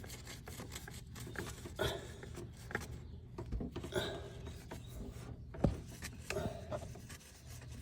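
Oil filter being unscrewed by hand from a Kawasaki Ninja 300 engine: faint rubbing and scraping with scattered small clicks and taps.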